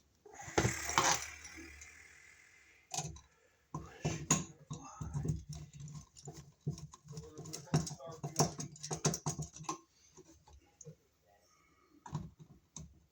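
Irregular clicks, light knocks and rustling as a wired wall receptacle and its wires are handled and folded back into the electrical box.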